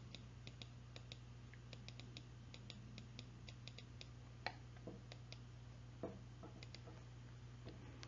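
Near silence: a steady low electrical hum with faint, scattered small clicks, two slightly louder ones about four and a half and six seconds in.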